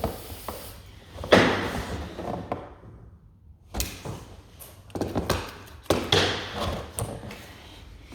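Irregular knocks and thuds from skirting-board fitting work, the loudest about a second in.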